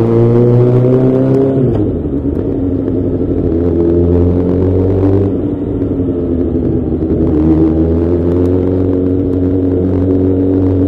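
Suzuki GSX-R600's inline-four engine pulling at low speed, the revs rising and then dropping away sharply about two seconds in and again about five seconds in, before climbing again.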